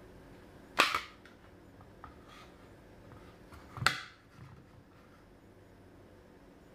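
Two sharp clicks about three seconds apart: a Glock 19 pistol clicking against a Vedder Kydex IWB holster as it is handled and seated.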